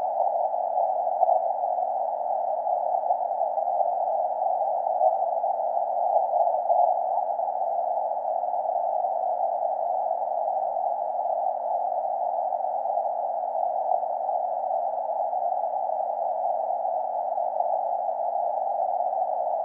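Ten Tec Eagle HF transceiver's receiver hiss on the 40-meter band, heard as a steady, narrow band of static through the radio's CW filter with no Morse signals keyed. A faint steady hum sits underneath.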